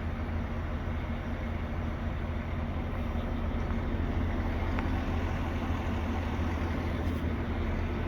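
Welding service truck's engine running steadily, a constant low hum with no change in pace.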